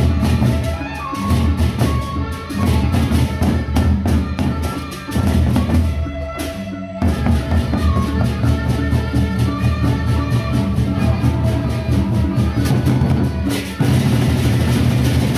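Gendang beleq ensemble playing: large double-headed barrel drums beaten with sticks in a fast, steady pattern, with clashing hand cymbals on top. The drumming thins out about six seconds in, then comes back, and gets louder again near the end.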